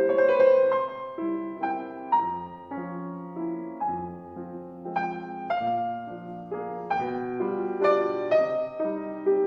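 Background music: slow, gentle solo piano, notes struck one after another.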